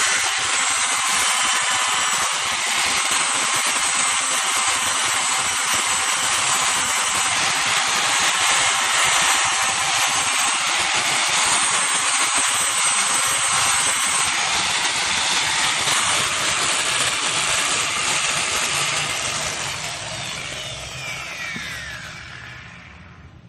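Handheld electric power tool running steadily against a powder-coated surface with a hissing whine, then winding down near the end with a falling whine as it stops.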